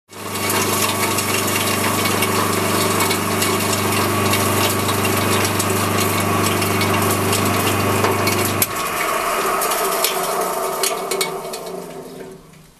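Electric grain crusher grinding grain mix for chicken feed: a steady motor hum under a dense grinding rattle. About two-thirds of the way in the motor hum cuts off, and the grinding noise dies away over the next few seconds.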